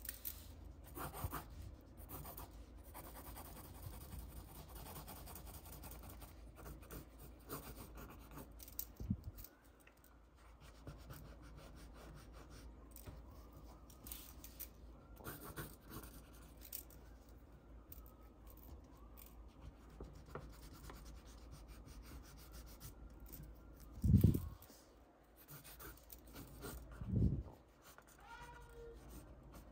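Wooden pencil scratching on paper in many short sketching and hatching strokes. Two thumps stand out near the end.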